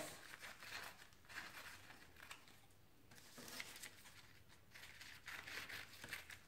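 Scissors cutting a dyed paper coffee filter: faint, scattered snips and paper rustling.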